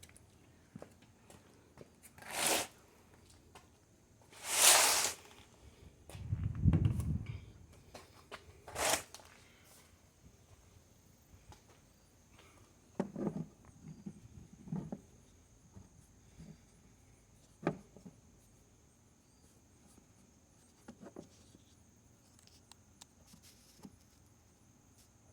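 Handling noise: three short rustling or scraping noises, a low thud between the second and third, then scattered light clicks and knocks.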